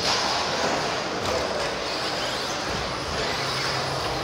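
1/10 electric stadium trucks with 13.5-turn brushless motors racing on a carpet track: a steady mix of high motor whine and tyre and chassis noise.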